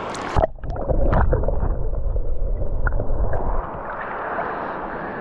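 River water sloshing and gurgling right against a camera held at the surface of a shallow river. About half a second in the sound turns muffled and deep, as if the microphone has dipped into the water, and it eases back to a softer wash of water past the middle.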